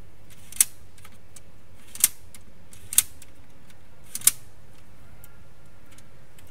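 Four sharp plastic clicks and snaps, with a few fainter ticks between, as the PS4 Slim's disc-drive eject mechanism is handled and a rubber band is hooked onto it.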